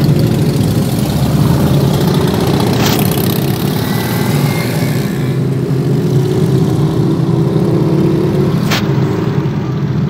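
Harley-Davidson V-twin motorcycle engines running in a group ride alongside, mixed with traffic noise, heard from inside a car's cabin. Two sharp clicks about three and nine seconds in.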